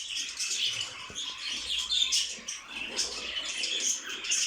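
Many small caged songbirds chirping and twittering at once, a dense, continuous chatter of short high calls.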